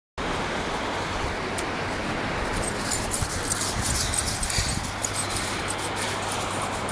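Metal tags on a running dog's collar jingling in bursts from about two and a half seconds in, with a few low thuds, over a steady beach hiss.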